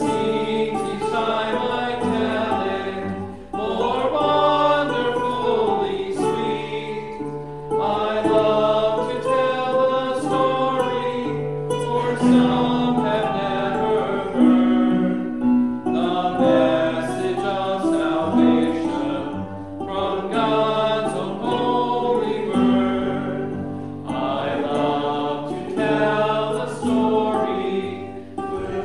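Congregation singing a hymn together, accompanied by a nylon-string classical guitar. The singing comes in sung lines with brief gaps between them every four seconds or so.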